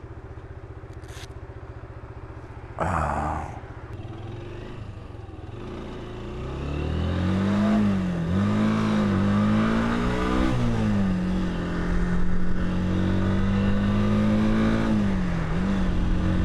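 Motorcycle engine idling at the curb, with a short loud scrape about three seconds in; from about six seconds in the bike pulls away, its engine note climbing and dropping through several gear changes before settling into steady cruising with one more shift near the end.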